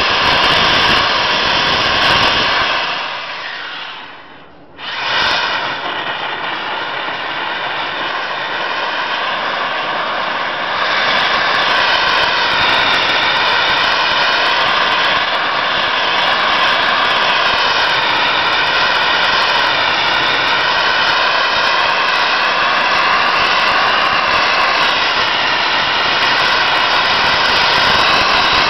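Sandblaster nozzle blasting abrasive against a locomotive cab's painted side: a loud, steady, jet-like rush of air and grit. The blast dies away about three seconds in, cuts back in sharply about two seconds later, and grows a little louder about halfway through.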